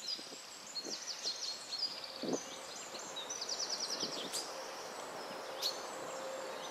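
Small songbirds calling and singing: short chirps and quick trills, one trill a run of rapid notes a little before halfway, over a faint steady background hiss.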